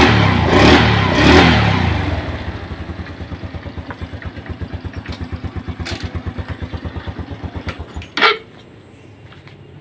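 Honda Revo Absolute's small single-cylinder four-stroke engine, freshly rebuilt with a new front gear shaft, blipped a couple of times and then settling to an even, pulsing idle. It is switched off about eight seconds in, followed by a single short knock.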